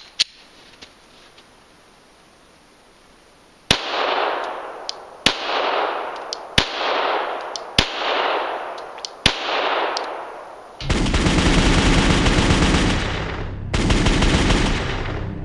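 Five single shots from a Glock 9 mm pistol, spaced about one to one and a half seconds apart, each followed by an echo that fades over about a second. About eleven seconds in, loud intro music takes over.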